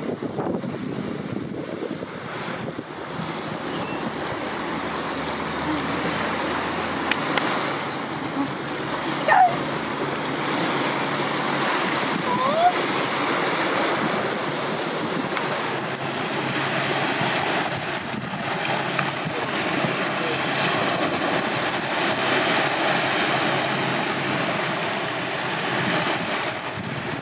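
Sea water lapping and washing with wind buffeting the microphone, a steady rushing noise. Two brief high chirps cut through, about nine seconds in and again about three seconds later.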